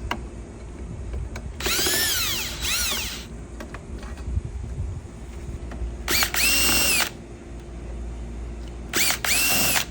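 Power drill/driver run in about five short bursts, each spinning up, holding and winding down, while backing out the screws to take a door's push-bar lock hardware off.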